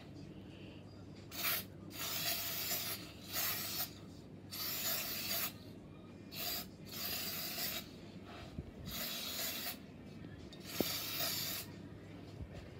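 Aerosol spray paint hissing from a mini spray can made from a refilled deodorant can, in about eight short bursts of up to a second each, as the mixed paint is test-sprayed to see its colour.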